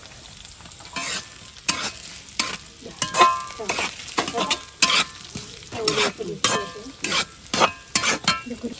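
Shallots, green chillies and curry leaves sizzling in coconut oil in a metal kadai, stirred with a metal spoon that scrapes and clicks against the pan in irregular strokes, one or two a second.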